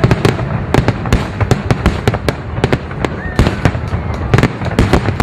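Fireworks going off in rapid succession: many sharp bangs and crackles, several a second, with a brief rising whistle about three seconds in.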